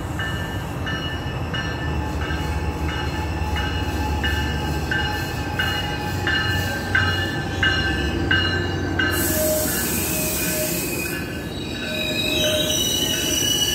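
Tri-Rail commuter train pulling into the platform: a steady low rumble with its bell ringing about three strokes every two seconds. About nine seconds in comes a burst of air hiss, then wheel and brake squeal as the train slows past.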